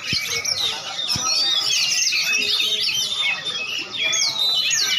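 Many caged songbirds singing at once in a dense, overlapping chorus of high chirps, trills and whistles. There are two brief low thumps, near the start and about a second in.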